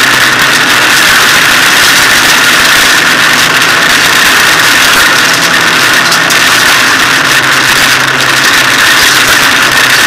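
Hyundai rally car's engine and road noise heard from inside the cabin under way, loud and steady with no break.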